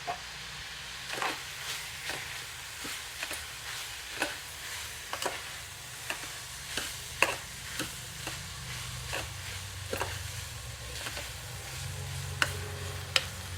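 A spoon stirring chopped beetroot and onions as they fry in oil, clicking and scraping against the pan about twice a second over a steady sizzle.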